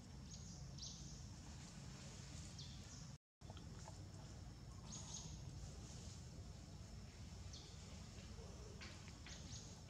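Quiet outdoor ambience: a low steady rumble with faint, short high chirps of small birds scattered through it and a thin steady high whine. The sound cuts out completely for a moment about three seconds in.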